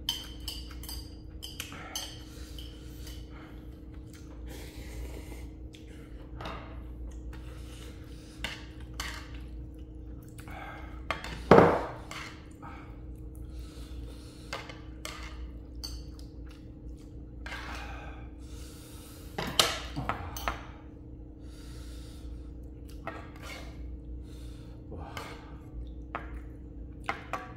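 Metal utensils clinking and knocking against a bowl of ramyeon while eating, in short scattered clicks with small eating noises between; the loudest knock comes about eleven and a half seconds in, another near twenty seconds. A steady low hum runs underneath.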